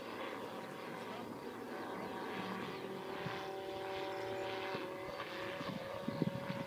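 Niki Lightning autogyro in flight at a distance: the steady drone of its engine and pusher propeller, growing gradually louder as it approaches.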